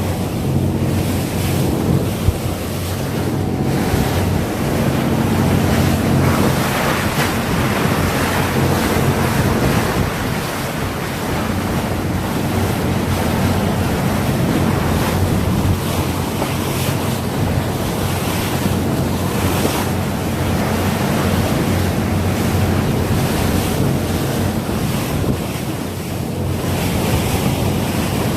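Wind buffeting the microphone over water rushing past the hull of a moving yacht, with a steady low hum underneath.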